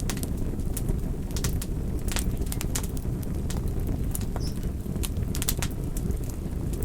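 Campfire burning: a steady low rumble of flames with irregular sharp crackles and pops from the burning wood, several close together in places.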